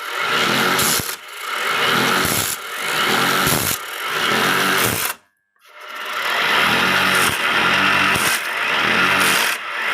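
Small water-pump engine, converted to drive a wood lathe, running with a sound that swells and dips about once a second. It drops out to near silence for about half a second a little past halfway, then comes back.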